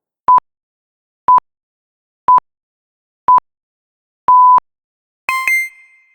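Electronic countdown beeps: four short, identical high tones one second apart, then a longer final beep. About five seconds in, a new bright electronic ding sounds twice in quick succession.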